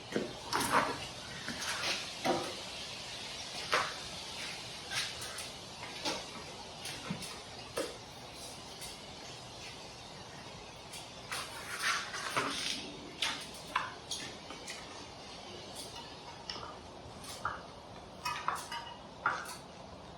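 Irregular light clicks and knocks of metal bike parts being handled as a wheel is fitted onto an e-bike frame, over a steady low hiss.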